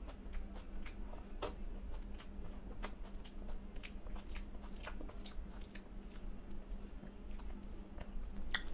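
Close-up chewing of a mouthful of rice mixed with mashed okra (bhindi bhorta), with small wet mouth clicks and smacks scattered throughout. A faint steady hum sits behind it.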